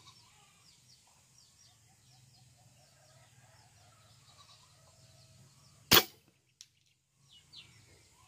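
A single sharp air rifle shot about six seconds in, over faint bird chirps.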